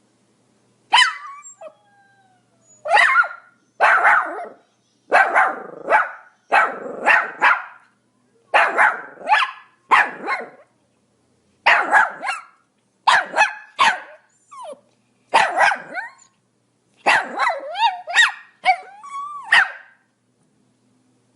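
A Pomeranian barking over and over, single barks and quick runs of two or three, about a second apart, stopping a little before the end.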